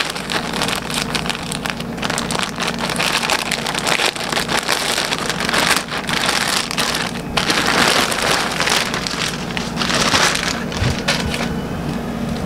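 Clear plastic poly bag crinkling and rustling as hands pull a folded garment out of it, dense irregular crackles throughout, easing a little near the end.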